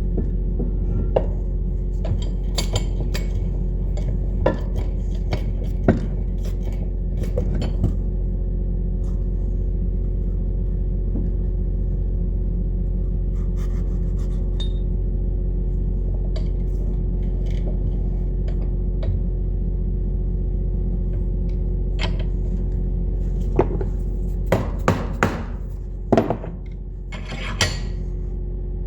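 Metal clinks, taps and light knocks of tools on metal parts, scattered through and bunched near the start and again near the end, over a steady low machine drone.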